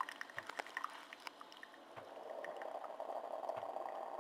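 Coffee dripping and splashing into a ceramic mug as the stream from a Tassimo T20 single-serve brewer dies away after the water-add button is released. About two seconds in, a steady hum from the brewer sets in and keeps going.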